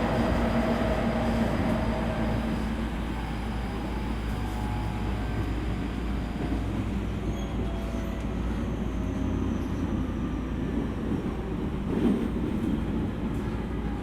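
E231 series electric train running, heard from inside the passenger car: steady rumble of wheels on track with a faint motor whine, easing slowly as the train slows for a station. A single knock about twelve seconds in.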